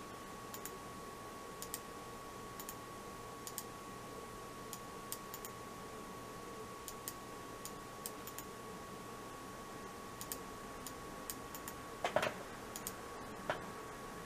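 Mouse-button clicks of a PICTEK wired gaming mouse, clicking at an irregular pace, often in quick double-click pairs, as text is selected and copied. A louder, duller knock comes about twelve seconds in.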